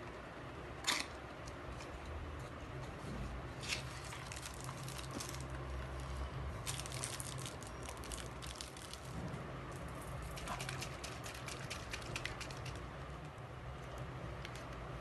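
Quiet handling noise on a cloth sheet: a sharp click about a second in, then two stretches of fine crackling and rustling, over a low steady hum.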